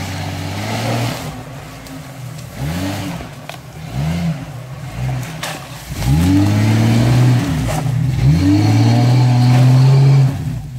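Off-road 4x4 SUV engine revving in repeated short bursts as it drives through deep mud. From about six seconds in it is held at high revs and is at its loudest, then drops off shortly before the end.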